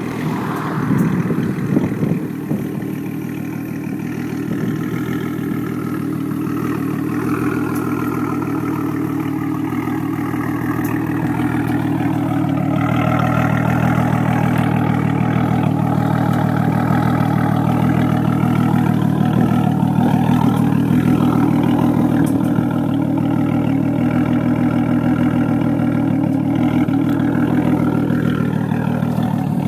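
Turbocharged VW Golf 24-valve V6 (VR6) idling through a 2.5-inch straight pipe with no catalytic converter and no resonator. There is an uneven, louder burst in the first two seconds, then a steady idle that grows a little louder about twelve seconds in.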